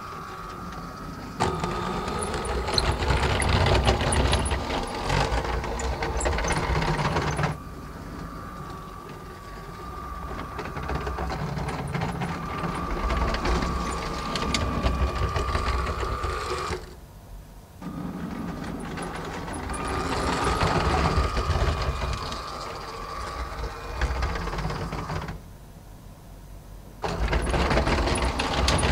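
Lego Powered Up train motors whirring and plastic wheels running along the track as the two trains start, stop and reverse. The whirr swells and fades in stretches, with a thin steady whine, and drops away briefly twice, about two-thirds in and again near the end.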